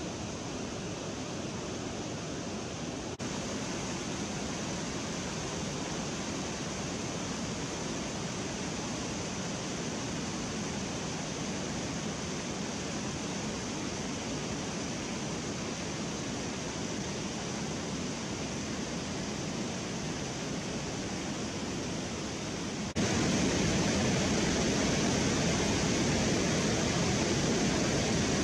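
Water rushing steadily over a river weir and churning white below it. It steps louder about three seconds in and again near the end.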